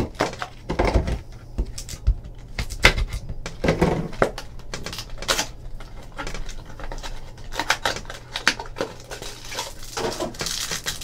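Trading cards and cardboard packaging handled on a tabletop: irregular clicks and taps as cards are shuffled and a card box is picked up and moved, with a rustle near the end.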